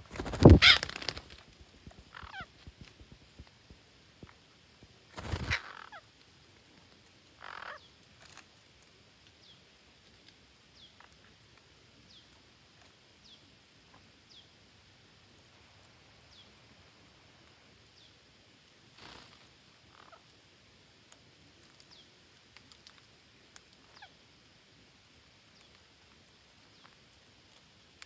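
Green parakeets calling: a loud harsh squawk just after the start and another about five seconds in, then softer scattered calls and faint short high chirps.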